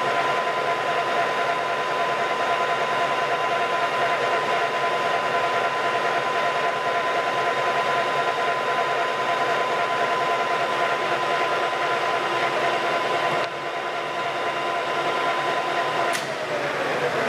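Colchester Master 1200 lathe running with a steady mechanical whine made of several held tones. Near the end there is a sharp click and one tone slides down in pitch as the machine's controls are worked.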